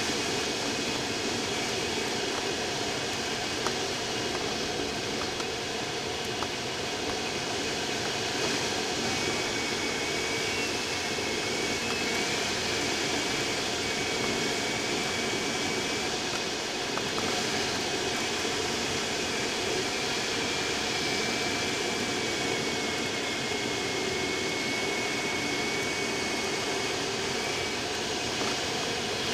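Steady rush of air around the canopy inside the cockpit of a Speed Astir sailplane in unpowered gliding flight. A faint, thin high tone that wavers a little in pitch comes and goes.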